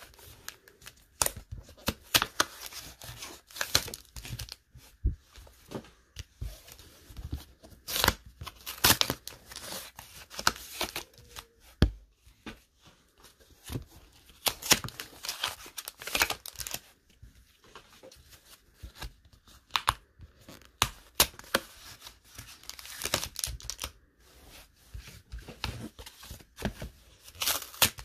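Foil Pokémon booster-pack wrappers crinkling and tearing open, with cards being pulled out and handled, in irregular short rustles and sharper tearing strokes.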